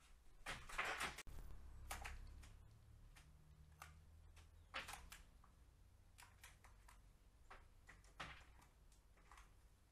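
Faint scattered taps and knocks from birds at a balcony ledge: a brief flutter of magpie wings about a second in, then a few sharp pecks as a carrion crow picks food off the ledge. A low steady hum runs underneath.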